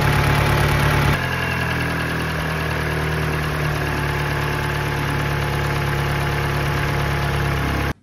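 Mini Cooper four-cylinder Valvetronic petrol engine idling rough on three cylinders: the intake valve on cylinder four is not opening, so that cylinder gets fuel but no air and misfires. About a second in, the engine note shifts and gets slightly quieter, then holds steady.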